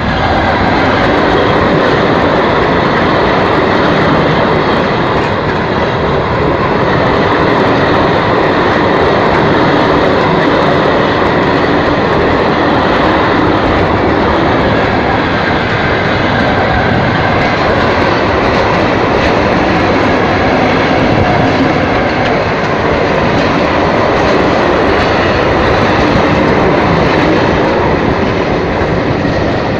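Container freight train passing close at speed behind diesel locomotives: a loud, steady rush and rumble of steel wheels on rail from the wagons going by, easing off near the end as the last wagons pass.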